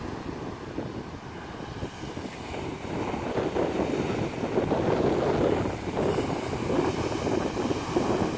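Ocean surf breaking against a lava-rock shore, a continuous wash that swells louder about halfway through, with wind buffeting the microphone.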